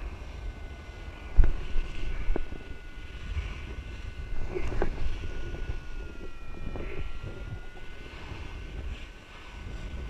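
Wind rushing over the microphone during a fall under a collapsed, twisted paraglider wing after a botched full stall, with the fabric and lines flapping. A sharp knock comes about a second and a half in and smaller knocks come near two and five seconds. A thin, steady high tone runs underneath.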